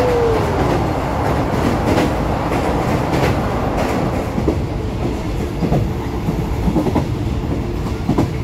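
Passenger train carriage in motion, heard through an open window: a steady rumble of wheels on the rails with irregular clacks as the wheels pass over rail joints.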